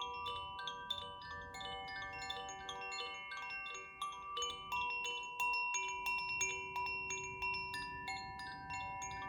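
Koshi chimes ringing as they are swung, the clapper striking the tuned rods several times a second to give overlapping clusters of bright, shimmering tones.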